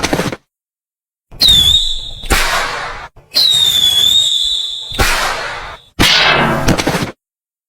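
Dubbed-in fight sound effects: two whooshing swishes that each carry a high whistle, and a string of heavy hit sounds that each trail off over about a second.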